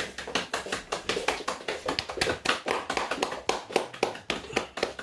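Hands clapping in quick, uneven claps, about five or six a second, as a welcome.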